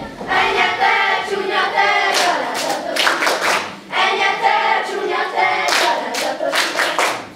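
A group of dancers singing a Hungarian folk song together without accompaniment, with rhythmic hand claps in two short runs, about two seconds in and again about six seconds in.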